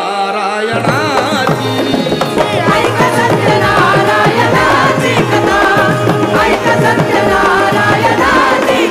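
Instrumental interlude of a Marathi devotional stage song: fast hand-drum rhythm under a melody line.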